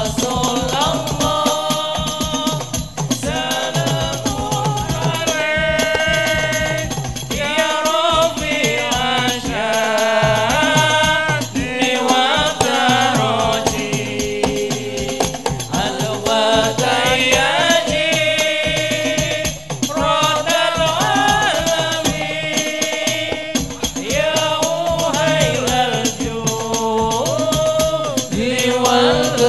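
Hadroh ensemble performing a sholawat: several voices sing a melodic devotional line in unison over a steady beat of hand-struck rebana frame drums.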